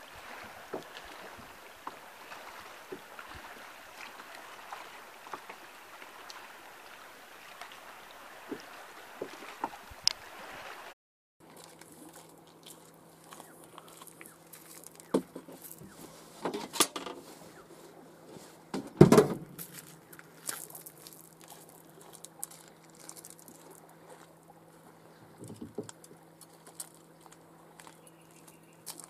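For about ten seconds, a steady outdoor hiss with scattered light knocks, as the camera moves along a bank. After a sudden cut, kayak gear is handled: a paddle and a fishing rod clatter and knock, with one louder knock about two-thirds of the way through, over a steady low hum.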